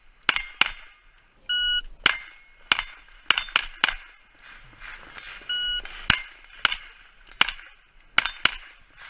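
Pistol-caliber carbine fired at steel plates in quick, irregular strings, about a dozen sharp shots in all, many followed by the ring of a hit plate. A short, high electronic beep sounds twice, about a second and a half in and again around the middle.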